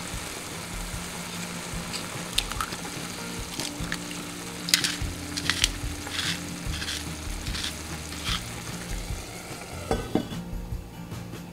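Food frying in a pan with a steady sizzle, while a utensil taps and scrapes against the pan several times.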